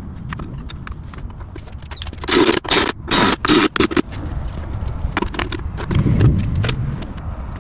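Metal accessory parts being handled during fitting to the motorcycle: a run of loud scraping and rattling noises about two to four seconds in, then a few light clicks, over a steady low rumble.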